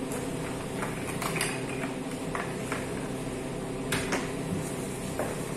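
A plastic toy motorcycle and its cardboard box insert being handled on a wooden desk: scattered light clicks and knocks, one sharper knock about four seconds in, over a steady room hum.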